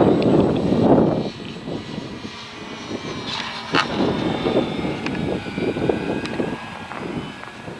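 Electric RC model airplane flying: its brushless motor and propeller give a thin high whine that shifts a little in pitch. Wind buffets the microphone, heaviest in the first second.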